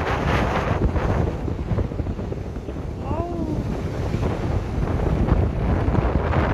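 Strong wind buffeting the microphone over the wash of sea surf on a beach. About three seconds in, one short rising-and-falling pitched call is heard.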